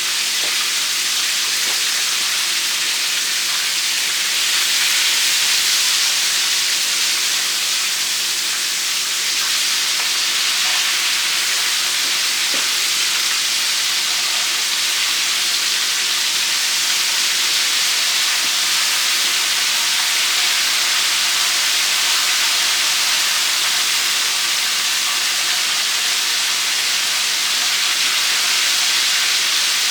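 Breaded chicken drumsticks deep-frying in hot oil: a steady, loud sizzle.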